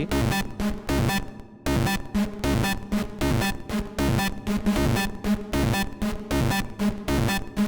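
Electronic hard techno loop: a detuned, multi-voice sawtooth synth lead in Serum 2 plays a short repeating phrase of pluck-like notes, about two a second, washed in reverb. The phrase drops out briefly about one and a half seconds in, then carries on.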